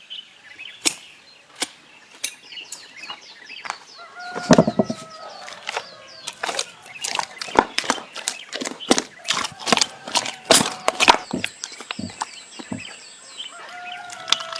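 A rapid, irregular series of sharp knocks or taps, densest in the middle, with bird chirps and a couple of short pitched calls.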